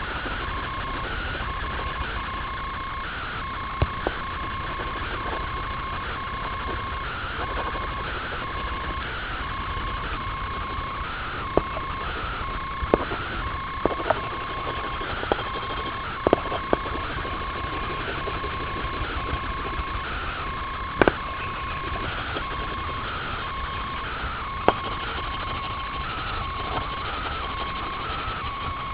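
Coloured pencil scratching on paper in steady, rhythmic shading strokes, with a handful of sharp ticks of the pencil against the paper.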